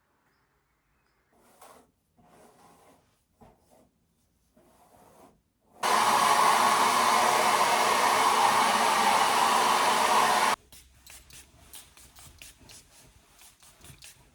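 A small electric appliance running with a steady rushing noise for about five seconds, switching on and off abruptly. Quiet handling rustles come before it and light clicks after.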